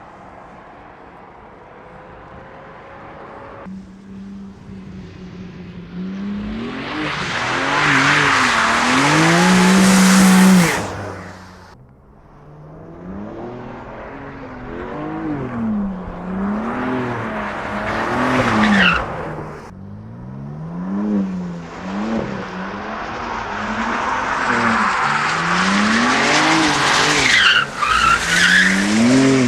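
BMW M4 Competition's 3.0-litre twin-turbo straight-six driven hard, revs swinging up and down again and again, with tyres squealing over it. It starts faint, builds from about four seconds in, and dips briefly near the middle.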